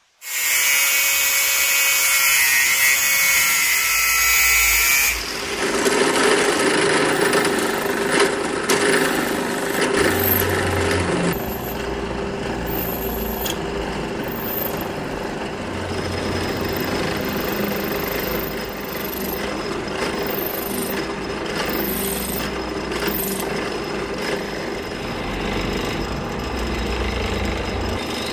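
Power tool running: a loud, high-pitched whine for about the first five seconds, then a lower, rougher steady running sound as the tool works the material.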